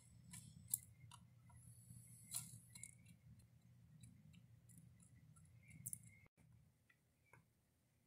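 Faint, irregular taps and clicks of a pileated woodpecker pecking at dead wood, heard through a window, over a low steady hum. The taps stop about six seconds in.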